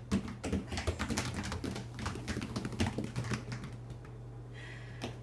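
Baby goats' hooves clicking and tapping on a tile floor in a quick, irregular patter, thinning out about four seconds in.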